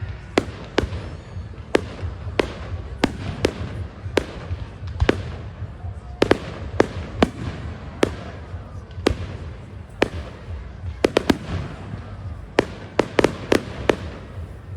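Fireworks going off: many sharp bangs and cracks at irregular intervals, some in quick clusters, over a steady low background noise.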